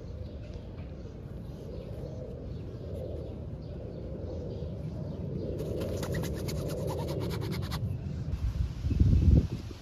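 Steady outdoor background rumble, with a stretch of rapid crackly rustling about six to eight seconds in as a kitten scrabbles at a nylon backpack. A low muffled bump on the microphone near the end is the loudest sound.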